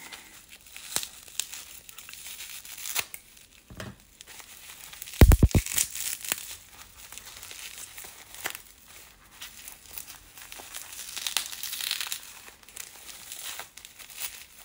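Packaging wrap around nail polish bottles being unwrapped by hand, with repeated crinkling, crackling and tearing. A quick cluster of low thumps a little over five seconds in is the loudest moment.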